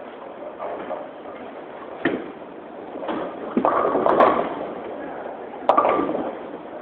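Bowling alley: bowling balls hitting and rolling on the lanes and pins crashing, with a sharp knock about two seconds in, a clattering crash lasting about a second from three and a half seconds in, and another crash near the end, over a low murmur.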